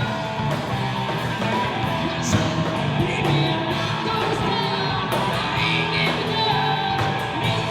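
Live band playing a rock song, with guitar and a singer's voice over it.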